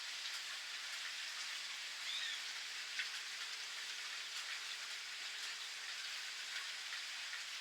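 Steady rain pattering, with single drops ticking sharply now and then. A bird chirps once, briefly, about two seconds in.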